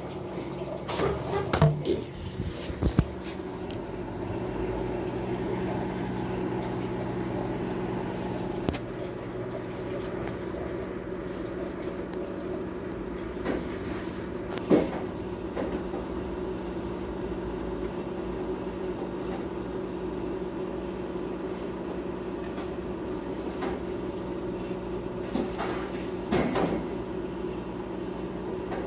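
Microwave oven running, heating water: a steady hum from its fan and magnetron. A few light knocks come about a second in, near the middle and near the end.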